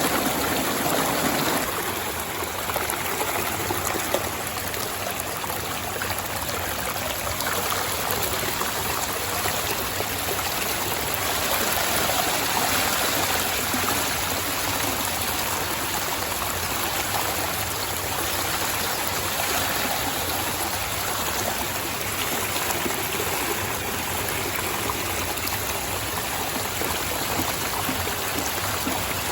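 A stream running over rocks with small waterfalls: steady rushing and trickling water. Its deeper rumble thins out about two seconds in.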